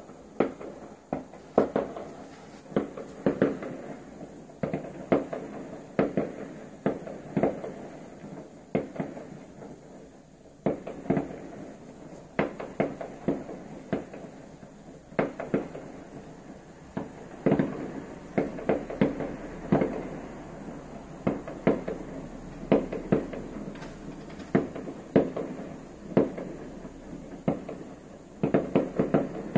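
Fireworks exploding: an irregular series of sharp bangs, often several a second and some in quick clusters, with a quieter spell about ten seconds in.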